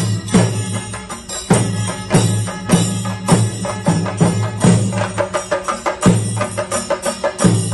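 Kerala temple percussion playing live: deep drum strokes, roughly one or two a second, over rapid sharper drumming and ringing brass hand cymbals.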